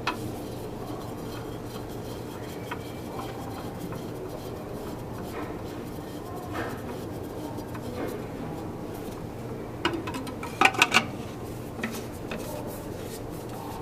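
Plastic water-filter housing being handled and screwed together: faint rubbing and small knocks, with a quick run of sharp clicks about eleven seconds in, over a steady low hum.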